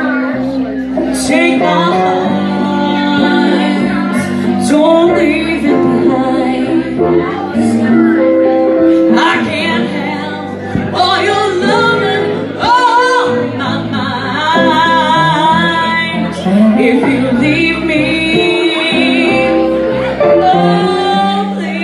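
A woman singing a blues song live, with guitar accompaniment; she holds long notes with vibrato.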